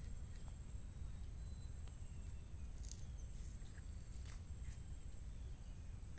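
Riverside ambience: a steady high-pitched insect drone over a low rumble, with a few faint clicks near the middle.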